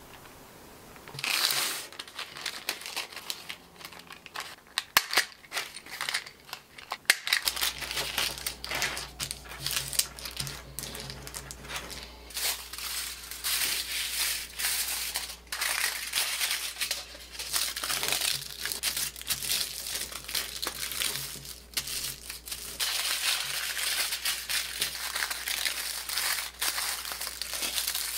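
Paper strips being handled and creased, then sheets of aluminium foil crinkling as they are picked up and folded into strips. From about seven seconds in a steady low hum runs underneath.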